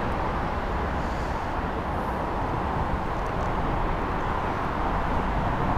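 Steady noise of road traffic, swelling a little near the end as a vehicle passes.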